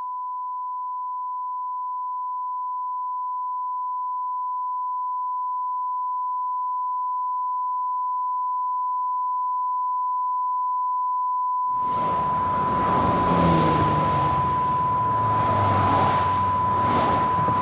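One pure, steady electronic tone, a continuous beep like a test tone, slowly growing louder. About twelve seconds in, a loud rushing noise suddenly comes in beneath it and the tone carries on through it.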